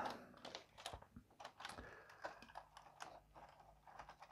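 Faint, scattered light clicks and taps of small plastic TT:120 model railway coaches being handled on the track.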